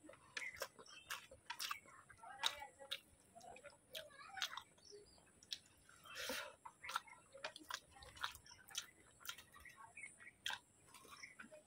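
Faint close-up chewing while eating a rice meal: scattered small mouth clicks and smacks at an uneven pace.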